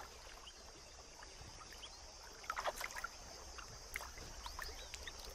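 Faint sloshing and dripping of shallow water as elephants wade and drink, with scattered small splashes, busiest a little after halfway.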